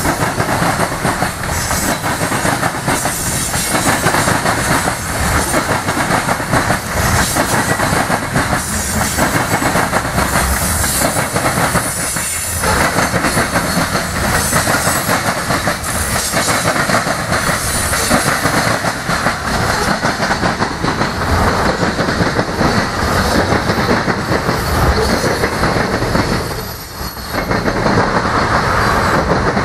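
Freight train of covered hoppers and tank cars rolling past at close range, its steel wheels clattering steadily on the rails. The sound eases briefly near the end.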